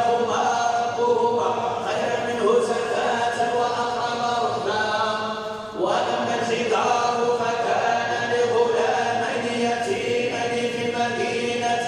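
Quran recitation chanted in long, melodic held phrases, with a brief pause for breath about six seconds in before the next phrase begins.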